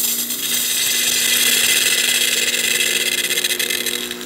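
De'Longhi Magnifica espresso machine's wand discharging into a stainless steel pitcher of water: a loud, steady hiss with the machine's pump humming underneath.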